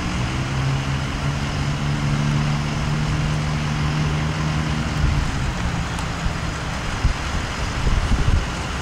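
A vehicle engine running with a steady low hum that stops about five seconds in, over a constant background rush of outdoor noise.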